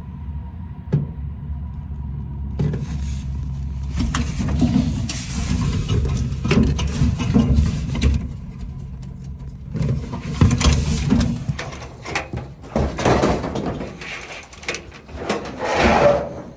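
Sheet-metal dryer parts being handled during a teardown: scraping and clanking knocks in bursts over a steady low rumble.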